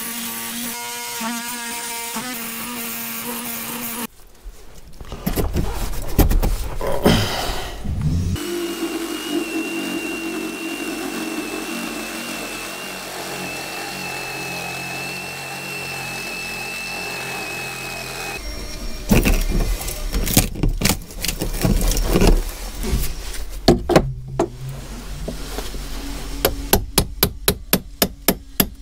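A cordless power tool cutting into a wooden boat frame, running steadily for about ten seconds in the middle with knocks before and after. Near the end a hammer strikes a chisel in quick, regular blows, about four a second.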